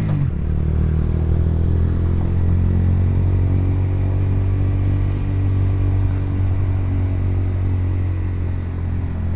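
Honda CBR125's small single-cylinder four-stroke engine running at a steady speed, its note holding even.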